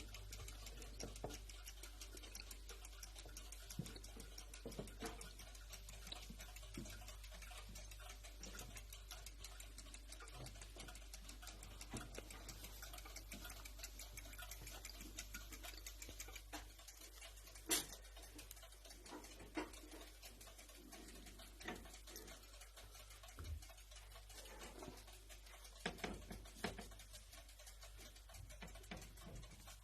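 Faint, scattered light clicks and taps over a steady low hum, with a sharper click about 18 seconds in and a few more taps near the end.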